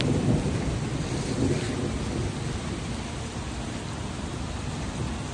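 Steady rushing and low rumbling of a hail-laden flash flood flowing across open ground, with thunder rolling under it. Slightly louder in the first second.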